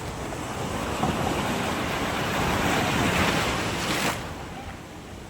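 A rushing noise that swells over a couple of seconds and falls away sharply about four seconds in.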